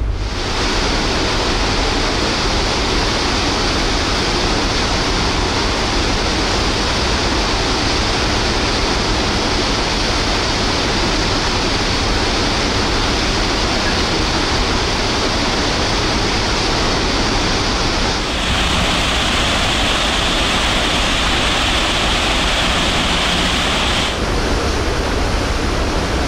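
Steady rushing of wind and the ferry's churning wake heard from the open deck, with a low rumble underneath. About two-thirds of the way through, the hiss turns brighter for several seconds, then settles back.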